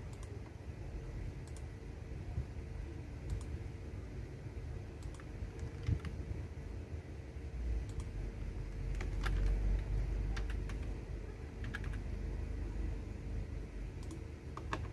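Computer keyboard keys clicking under typing: scattered, irregular keystrokes with a quicker run of taps in the second half, over a low rumble that swells midway and a faint steady hum.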